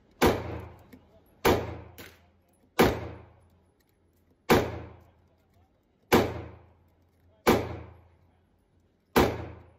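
Glock 48 9mm pistol firing slow, steady shots: seven loud reports about one and a half seconds apart, each ringing out in an indoor range bay. A fainter crack follows just after the second shot.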